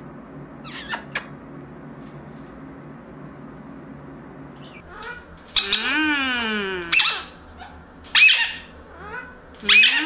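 Blue-crowned conure calling: a few loud, drawn-out calls that rise and then fall in pitch, starting about five seconds in after a quiet stretch, with a couple of light clicks about a second in.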